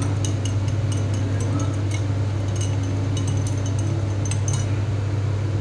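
A metal spoon and ice cubes clinking against a drinking glass as a drink is stirred, in many light, irregular clinks that come thicker about halfway through. A steady low hum runs underneath.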